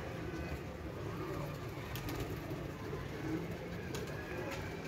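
A flock of domestic pigeons cooing steadily, with a few light clicks about two seconds in and near the end.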